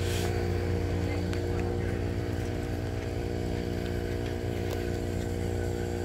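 A steady engine hum: an engine running at an even, unchanging speed, with a few faint ticks over it.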